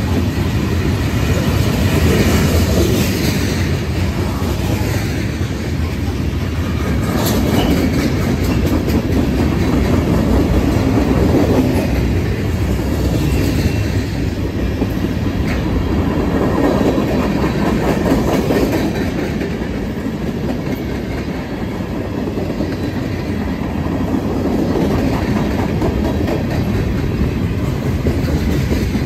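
Freight train cars (tank cars, hoppers and boxcars) rolling past close by: the steady noise of steel wheels on the rails, swelling and easing slightly as the cars go by, with one brief sharp clank about seven seconds in.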